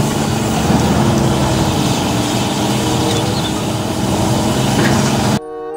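John Deere tracked excavator's diesel engine running hard while it grapples tree trunks, with a steady hum whose pitch sags a little and recovers as the hydraulics take the load. It cuts off near the end, where chiming music begins.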